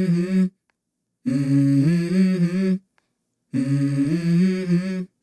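Background music intro: a short hummed vocal phrase in layered steady notes, repeated about every two and a quarter seconds, each repeat cutting off abruptly into silence.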